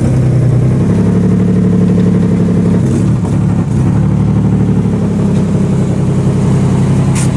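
Nissan 300ZX's 3.0-litre V6 running at low revs while the car creeps forward, its note wavering in pitch around three seconds in; the owner says the engine still has a misfire.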